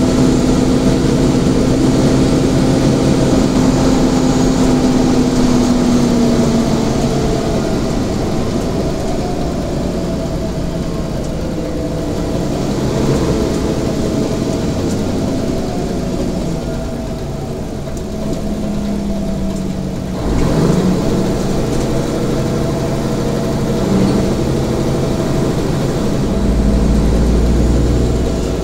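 Mercedes-Benz Citaro G articulated city bus heard from inside, its engine running as the bus drives, with the engine tone shifting in pitch along the way. A single knock sounds about two-thirds of the way through, and a deeper low rumble sets in near the end.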